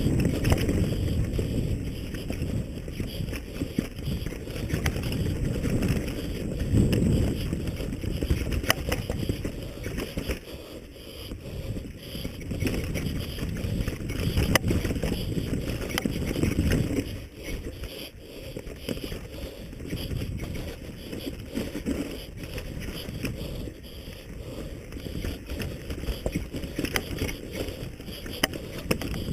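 Wind buffeting the microphone, with the rattle and tyre noise of a mountain bike on rough ground. The loudness swells and fades every few seconds, with scattered sharp knocks.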